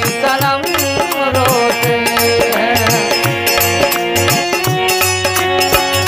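Harmonium playing a Hindi film-song melody over the steady beat of a dholak, in an instrumental passage.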